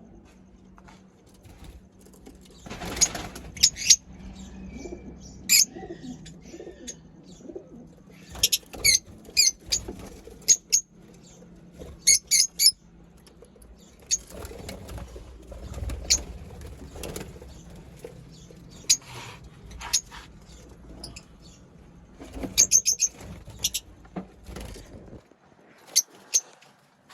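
Lovebirds chirping: short, shrill, high-pitched calls scattered throughout, often in quick runs of three or four, over a soft background rustle.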